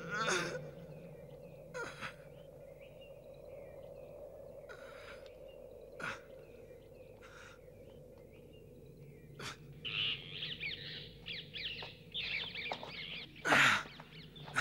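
Large birds of prey screeching: scattered short cries at first, then a dense run of rapid screeches from about ten seconds in, loudest near the end, with a few sharp cracks in between over a steady low background drone.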